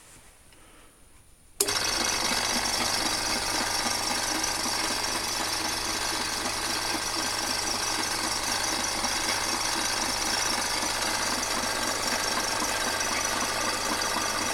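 Homemade milling machine switched on about a second and a half in, then running steadily: a constant motor hum with a rapid rhythmic mechanical rattle.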